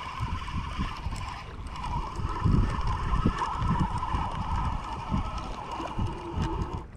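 Daiwa spinning reel being cranked steadily to bring in a hooked fish, a continuous gear whine that stops near the end, with wind buffeting the microphone.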